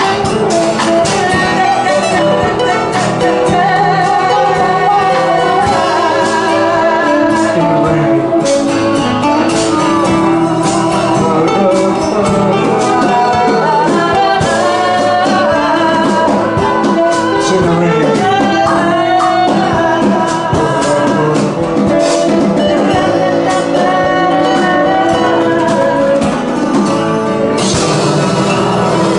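Live acoustic band music with guitar, a bending melodic line over the chords, and a brighter top end for the last couple of seconds.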